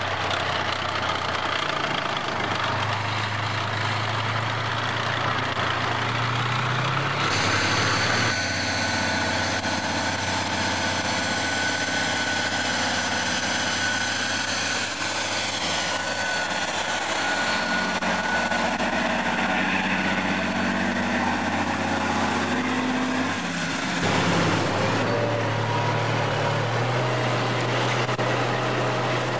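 Heavy military diesel engines running as the vehicles drive off-road, in three shots: first a T-55T armoured recovery vehicle, then a Tatra 813 8x8 truck from about 7 seconds in with a higher whine over the engine, then engine noise from aboard a moving vehicle near the end. The engine sound is steady throughout, changing abruptly at each cut.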